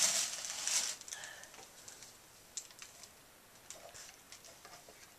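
Paper gift bag and tissue paper rustling for about a second as a gift box is pulled out, then a few light clicks and taps as the cardboard box is handled.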